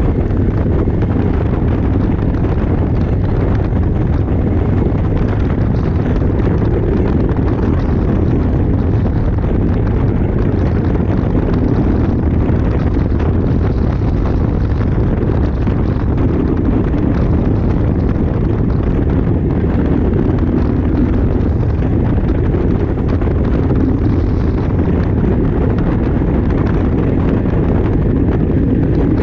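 Motorcycle riding at road speed: a steady rush of wind buffeting the microphone, with the engine's low running underneath.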